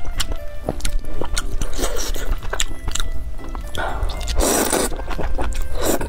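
Background music under close-miked eating sounds of spicy noodles: chewing and small clicks, with a long noodle slurp about four and a half seconds in and another at the end.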